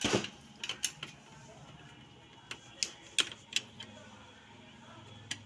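Irregular sharp clicks and taps of small hard parts being handled, about nine scattered through a few seconds, over a faint steady hum.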